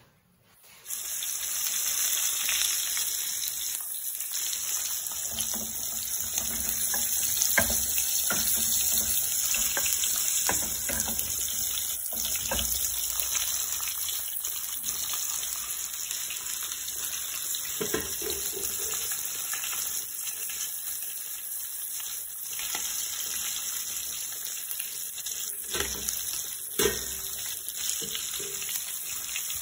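Pieces of fish frying in oil in a pan, sizzling steadily, with a few short knocks of a utensil or pot.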